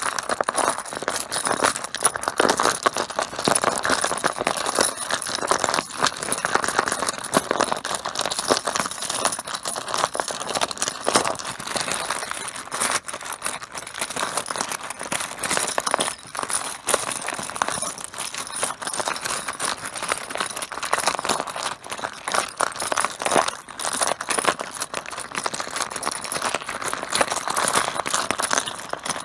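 Mahjong tiles clattering and clicking against each other in a dense, continuous stream of small knocks.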